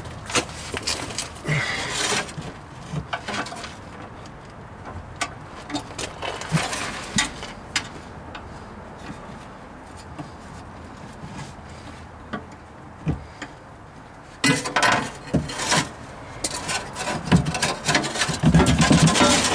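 Metal exhaust parts being handled and fitted: scattered clinks, knocks and scrapes of the new resonator pipe and its hardware, with a busier stretch of scraping and clanking in the last five seconds.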